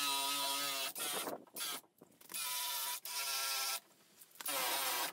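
Power drill spinning a wire brush in repeated bursts of about a second, a steady whine with short pauses between, scrubbing rust and cracked paint back to bare metal.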